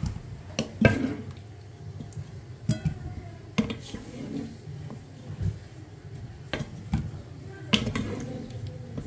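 A wooden spatula knocking and scraping against a stainless steel pot and a ceramic plate while boiled chicken gizzards are scooped out. The knocks are irregular, about seven of them, some with a brief metallic ring.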